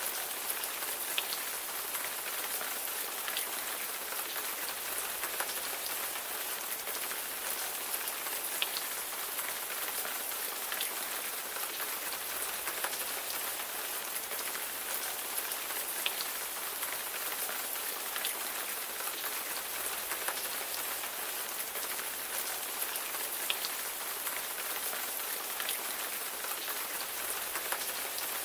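Steady rain pattering on a surface, an even hiss with many separate drop ticks scattered through it.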